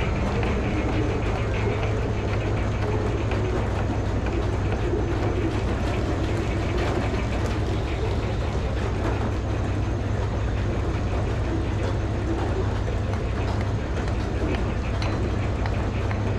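Engine running steadily, powering a Frick sawmill's circular saw.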